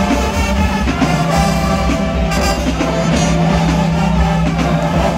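Marching band brass and drums playing, with the low brass holding one long low note from about half a second in, over a steady bass-drum beat.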